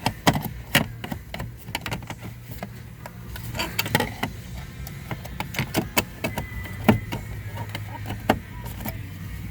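Plastic dashboard trim and its clip being handled and fitted, giving scattered sharp clicks and taps throughout, over a steady low hum.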